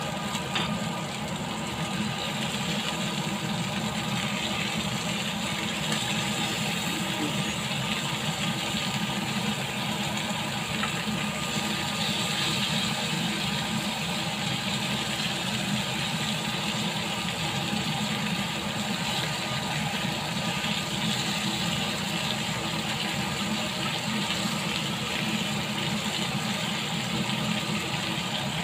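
Lamb chops sizzling steadily in a hot grill pan over a steady low hum, with an occasional click of metal tongs against the pan as the chops are turned.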